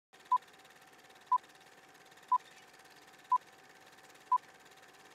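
Old film-leader countdown effect: five short, identical beeps, one each second, over a faint steady hiss and a thin steady hum.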